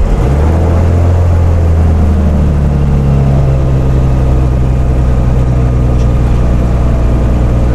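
Cirrus SR22T's turbocharged six-cylinder Continental engine catching at start-up and then running steadily, its note shifting and settling about two seconds in.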